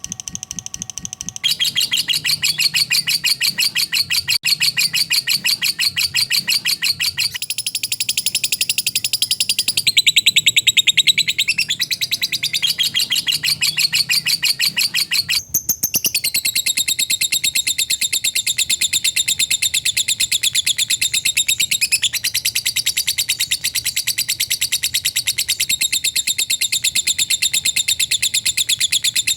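Lovebird giving its long 'ngekek' chatter: a continuous, fast, tightly packed series of high, shrill notes with no break. The run is spliced from several takes, so its tone changes abruptly a few times.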